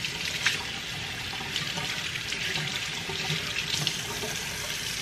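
A steady rushing hiss, like running water, under a few faint clicks and knocks of handling.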